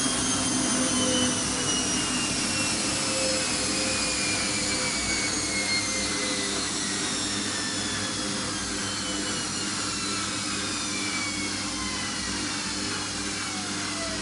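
Siemens 6127 front-loading washing machine at the end of its spin on the Easy Care programme, the drum slowing down. The motor whine falls steadily in pitch and the running noise slowly gets quieter.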